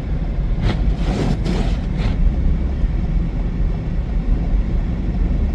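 Steady low rumble of a car driving through a snowstorm, with a brief rush of wind-like noise about a second in.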